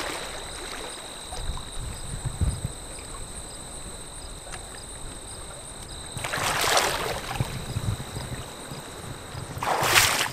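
Feet in sandals wading through shallow water onto a rocky shore. There are splashing swishes about six seconds in and again, loudest, near the end. Before that there is only a low steady background of wind and water.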